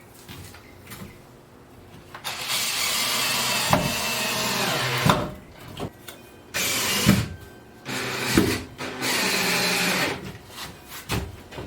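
Power drill driving screws through two stacked Coosa composite panels. It runs in four bursts starting about two seconds in, the first about three seconds long, with short knocks in between.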